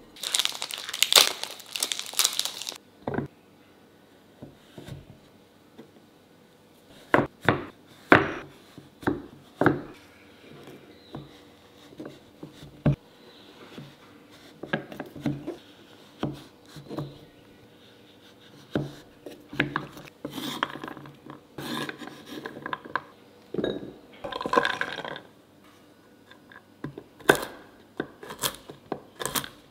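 Chef's knife chopping a dark chocolate bar on a wooden cutting board: scattered cracks and knocks as the blade breaks through the chocolate onto the wood. Near the end comes a quicker run of chops through pecans. A crinkling rustle fills the first few seconds.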